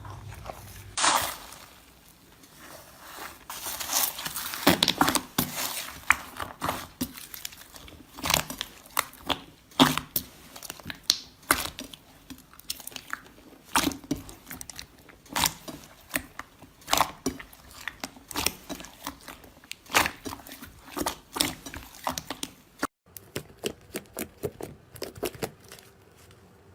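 Slime being squished and worked, giving a long run of irregular crackling pops and clicks, several a second, with a brief break near the end.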